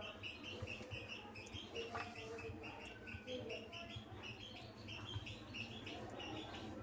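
Birds chirping rapidly and steadily in the background, with faint wet squelching and soft taps from a hand rubbing thick yogurt marinade over chicken in a steel bowl.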